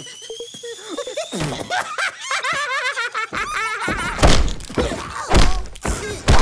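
Cartoon sound effects: a slowly rising whistle-like tone, then wobbly warbling cartoon voices, then three heavy thuds about a second apart as the two cartoon birds fall to the ground.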